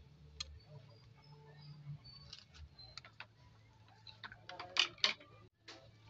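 A spoon clinking and scraping against a glass bowl as a wet mixture is stirred, with scattered light clicks and a louder clatter about five seconds in.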